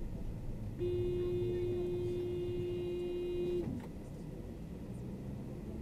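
A vehicle horn blown in one long, steady blast of about three seconds, starting about a second in and cutting off sharply, over the car's own road and engine rumble.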